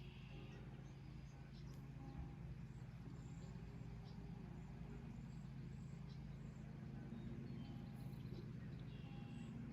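Faint, scattered high bird chirps over a steady low hum.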